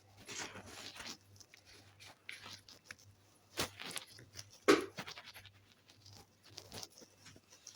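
Runny store-bought slime being stretched and squeezed by hand: faint, scattered sticky crackles and squishes, with a couple of sharper pops about three and a half and four and a half seconds in.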